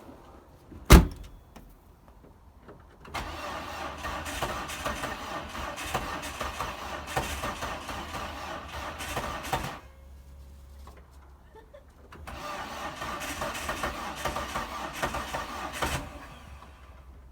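A single loud thump, then a car engine cranking on its starter twice, for about six seconds and then about four, without catching: the car won't start.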